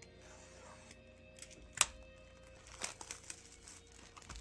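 Trading card pack wrapper crinkling as it is handled and opened, with one sharp snap about two seconds in and a few lighter clicks a second later. Quiet background music runs underneath.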